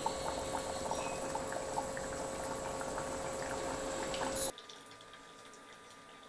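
Chicken curry simmering in a pot on a gas stove, bubbling with small scattered pops and a faint steady hum. About four and a half seconds in the sound drops sharply to a much quieter level.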